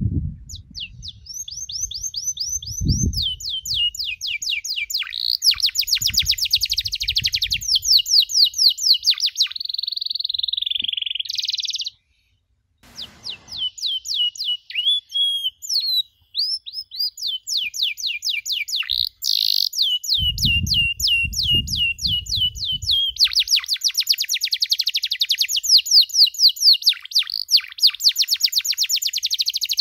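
Domestic canary singing: fast trills of rapidly repeated high chirps, one run after another, with a brief break about twelve seconds in. Low thumps sound underneath near the start and again about twenty seconds in.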